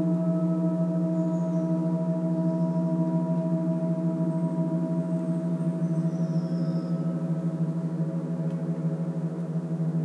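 Gong ringing on in a long, sustained drone, a deep hum with many overtones above it, slowly fading.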